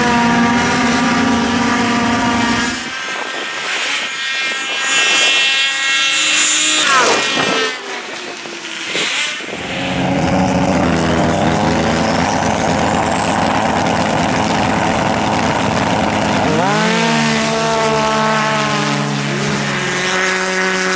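Racing snowmobile engines at full throttle on a drag strip. At each launch the engines' pitch climbs sharply and then holds steady while the sleds pull away, once at the start and again about two thirds of the way through, with a weaker, broken stretch between the runs. A high whine rises in pitch alongside the engines in the middle.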